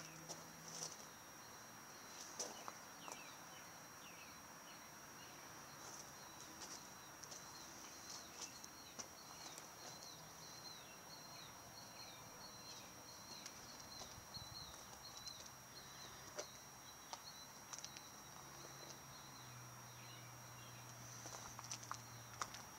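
Faint outdoor ambience with a steady high thin whine and a run of quick, evenly repeated chirps through the middle. Scattered short clicks come and go, along with a faint low hum near the end.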